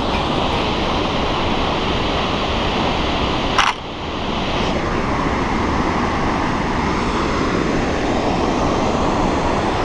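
Steady rushing roar of a large waterfall, a constant even noise. A sharp knock about three and a half seconds in, after which the rush dips briefly.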